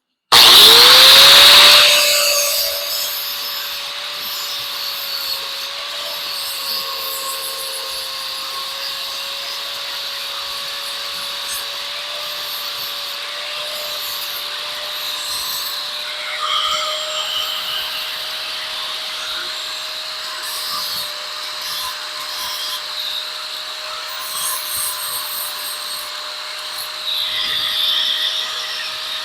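A small high-speed power tool fitted with a buffing pad starts up with a quickly rising whine and a loud first couple of seconds. It then runs at a steady high whine while the pad rounds a piece of silverware fork, with short louder scuffing spells as the metal is pressed against it, the strongest near the end.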